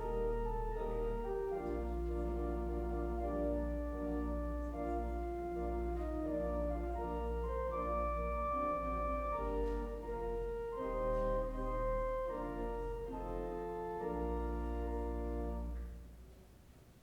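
Organ music: slow sustained chords over a held low bass note, the notes changing about once a second, ending a second before the end.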